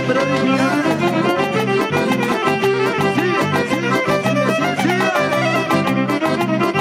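Live band music without singing: violins play a wavering melody over keyboard, electric bass and a steady fast beat.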